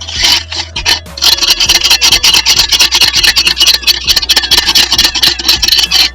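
Hard-water scale being scraped off the inside of a small electric water heater's tank: rapid rasping scraping strokes, becoming more continuous from about a second in.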